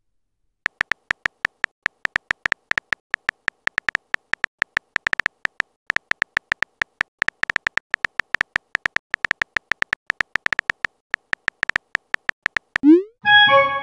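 Phone keyboard key-press clicks as a text message is typed: an irregular run of short ticks, several a second, stopping about 12 seconds in. They are followed by a short rising pop and a brief chime as the message is sent.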